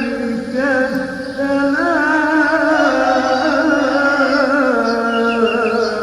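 Music with a singing voice holding long notes that waver in pitch, with ornamented turns.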